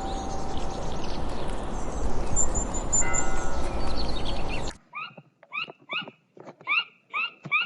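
Outdoor ambience with small birds chirping over a steady background noise, cut off suddenly about five seconds in and followed by a rapid series of short, rising animal calls, about two to three a second.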